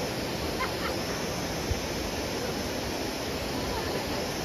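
Steady rushing of a river, an even roar of water with no breaks.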